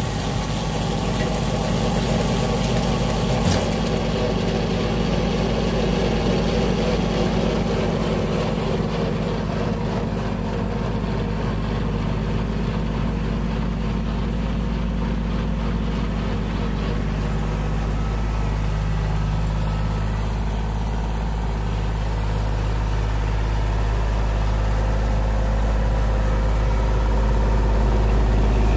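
Kubota L2501 compact tractor's three-cylinder diesel engine running steadily, growing a little louder near the end.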